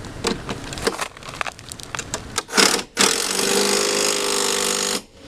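A few light clicks and knocks of metal hardware being handled, then a power drill running steadily for about two seconds before stopping suddenly, driving the fender bolts and nuts.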